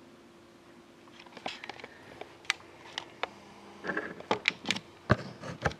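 Hands handling a sealed hockey card box and its packaging: scattered crinkles and clicks that grow busier, ending in two sharp snaps.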